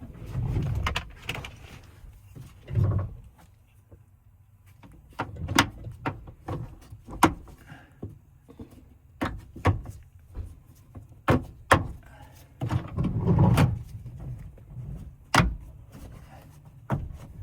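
Sharp plastic clicks and taps with rustling handling noise, a dozen or so irregular knocks, as interior trim pieces on a minivan sliding door are handled and pushed into place.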